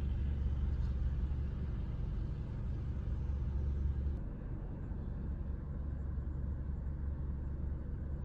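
Low, steady rumble of a car heard from inside the cabin. The deepest part of the hum drops away about four seconds in.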